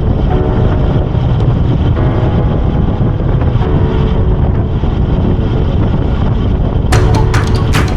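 Heavy wind buffeting on the microphone of a moving bicycle, a steady low rumble. Music with a sharp beat starts about a second before the end.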